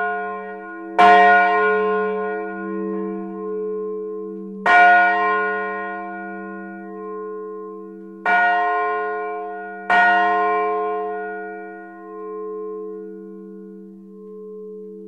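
Two bronze church bells, tuned f' and as', ringing together in a full peal, heard close up in the bell tower. Four strong clapper strikes come, the last about ten seconds in. After that no more strikes come and the deep hum slowly dies away as the ringing ends.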